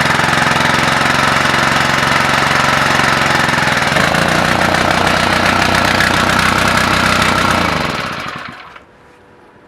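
Small petrol engine of a rail-drilling machine running loudly, its note shifting about four seconds in. It is shut off about eight seconds in and winds down over about a second.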